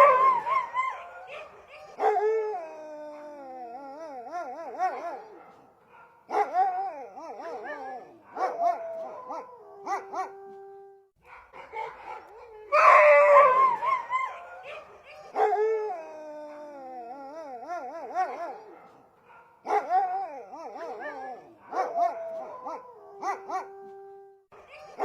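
Siberian huskies howling in long, wavering calls that slide up and down in pitch, broken by short gaps. A loud burst of calls opens the sequence, and it starts over about halfway through.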